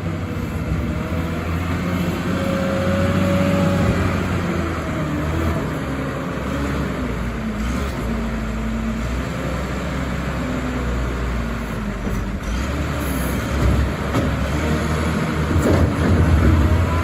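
Komatsu WA270-5 wheel loader's diesel engine running steadily, its note and load shifting as the machine is worked, with a faint whine coming and going.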